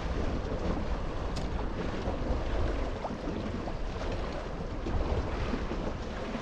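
Wind buffeting the microphone over water washing and splashing against the hull of a small sailing dinghy under sail, with a steady low rumble.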